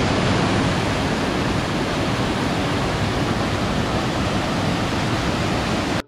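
Waterfall: a loud, steady rush of falling water that cuts off suddenly at the end.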